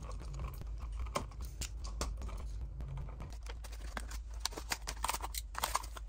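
Quick light clicks, scrapes and rustles of hands handling a standard electrical receptacle and working its wires out of the back-stab connections, over a low steady hum.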